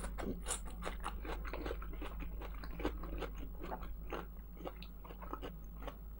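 A person chewing and biting food close to the microphone: irregular small crunches and mouth clicks, a few every second.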